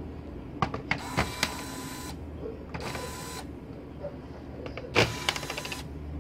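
Electric screwdriver whirring in three short bursts as it backs screws out of a laptop's plastic bottom case, with a few sharp clicks and taps between them.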